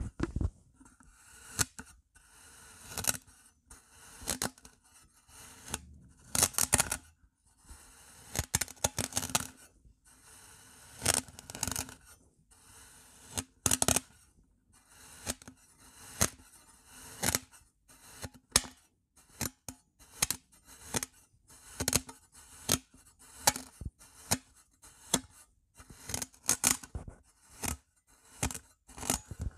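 A metal slotted spatula cutting down through packed kinetic sand over and over, each cut a short crunch. The cuts come about once a second at first and quicken to about two a second in the second half.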